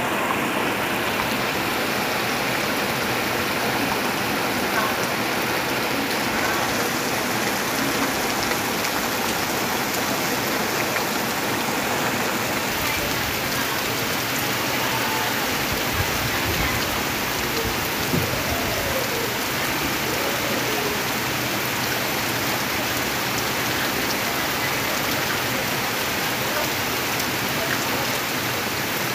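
Heavy rain falling steadily, a dense even hiss of drops on trees and foliage.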